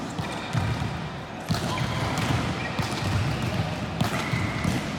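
Volleyball being hit and bouncing on a hard gym floor during play, with a sharp impact about one and a half seconds in, over the murmur of a large hall.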